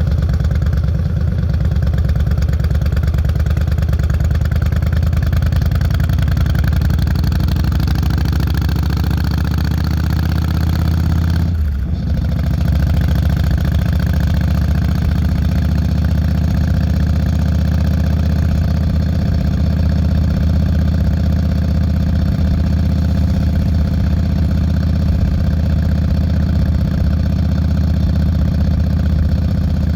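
Carbureted Yamaha Road Star (Wild Star) 1600 V-twin running through Vance & Hines Longshots exhaust pipes while cruising, a steady deep engine note that dips briefly about twelve seconds in.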